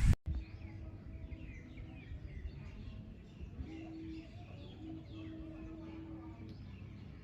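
Small birds chirping in many quick, short calls over a low background rumble, with a faint steady low hum that comes and goes.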